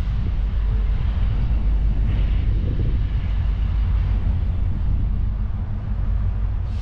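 Steady low outdoor rumble under an even hiss, with no separate events.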